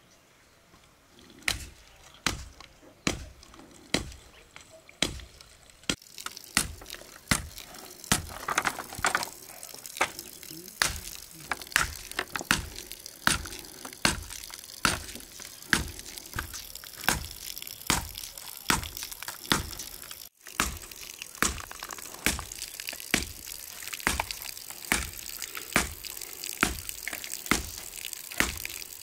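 Blade chopping into bamboo, a steady series of sharp strikes at about one to two a second, as bamboo poles are split into strips.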